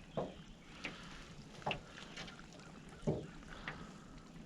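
Irregular soft knocks and bumps in a small boat, about five of them, while a hooked fish is being worked free of the hook.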